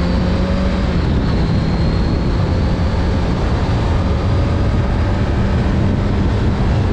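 Kawasaki Z900's inline-four engine running under way at a nearly steady pitch as the motorcycle cruises, with wind and road rush.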